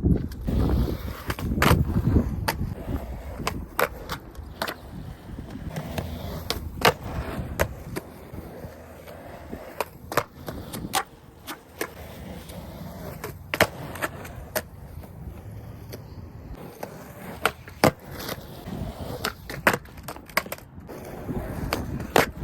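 Skateboard rolling on pavement, the wheels making a low rumble, with repeated sharp clacks and knocks of the board hitting the ground.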